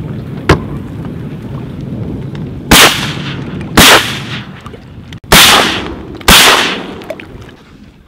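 Shotgun shots at clapper rails in flight: four loud blasts, each with a fading tail, in two pairs about a second apart, after a shorter sharp crack about half a second in.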